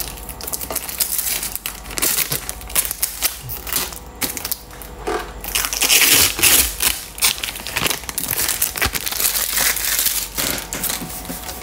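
Clear plastic protective film being peeled off and bunched by hand, crinkling and crackling continuously.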